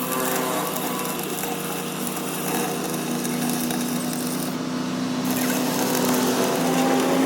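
A power tool's motor running steadily with a constant hum, growing a little louder toward the end.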